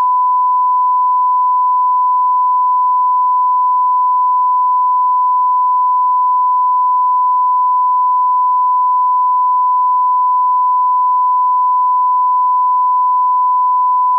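A 1 kHz sine-wave test tone, one steady pure pitch held unbroken and loud.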